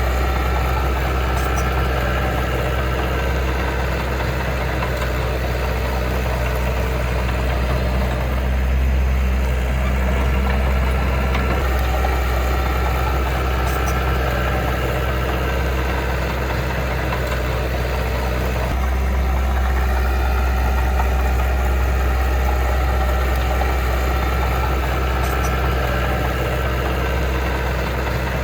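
Heavy diesel engine of earthmoving machinery running steadily with a deep, even drone; the note shifts slightly about two-thirds of the way through.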